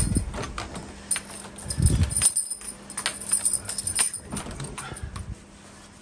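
Handle of a uPVC French door being worked, with clicks and knocks from the multipoint lock's newly refitted gearbox and keys jangling in the cylinder. A loud knock at the start and a low thud about two seconds in, then a run of clicks and jingles that dies down near the end as the door swings open.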